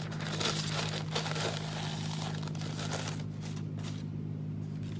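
A thin sheet of paper being handled and crumpled, a dry crinkling rustle that lasts nearly four seconds and then dies away. A steady low hum runs underneath.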